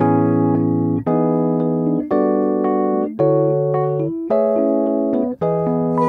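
Solo electric piano playing sustained chords, a new chord struck about once a second, in an instrumental passage without singing.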